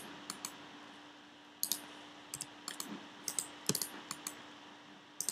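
Computer keyboard keys and mouse buttons clicking in scattered short runs, over a faint steady hum.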